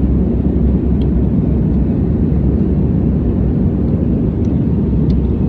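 Steady low drone of a passenger airliner's engines and airflow, heard inside the cabin.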